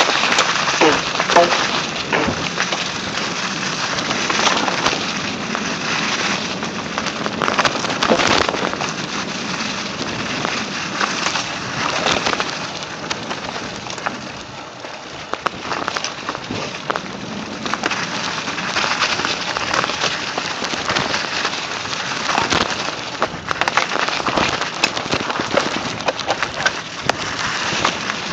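Mountain bike tyres rolling fast over dry fallen leaves and forest ground, a steady crackling rustle broken by frequent short knocks and clicks as the bike goes over bumps.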